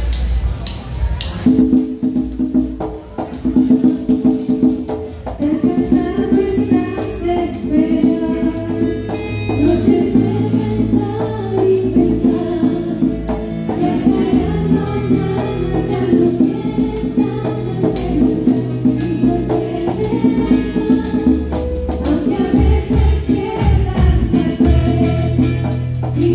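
Live band playing a Latin-style song, with drum kit, congas, electric guitar and bass, and voices singing. A few sharp hits come first, and the full band comes in about a second and a half in.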